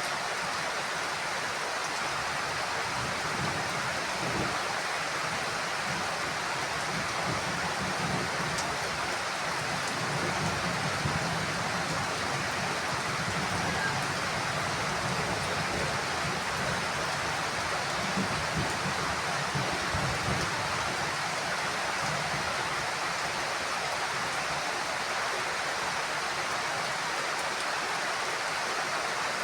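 Heavy rain falling steadily, with low rumbling thunder swelling and fading from a few seconds in until about two-thirds of the way through.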